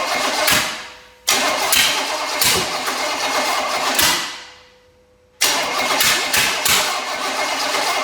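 Chevy 305 small-block V8 cranked over on the starter in three bursts, catching briefly on fuel poured into the carburetor with sharp pops, then winding down each time. It is a long-stored engine that the owners suspect has a sticking valve.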